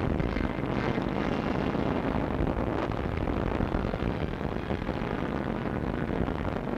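Steady, dense rumbling roar of aircraft engines and battle noise, with no single blast standing out.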